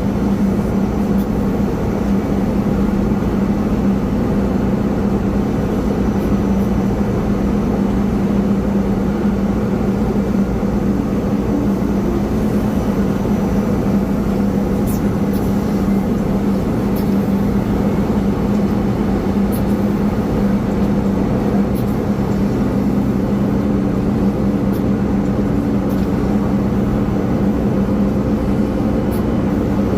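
Steady drone of a Boeing 777-300ER on the ramp during pushback, its engines running with a constant low hum that does not change.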